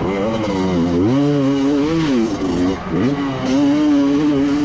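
Honda CR250 two-stroke motocross engine under hard throttle. It climbs in pitch about a second in, drops back as the throttle is closed near two and a half seconds, then climbs again and holds steady before a brief dip at the end.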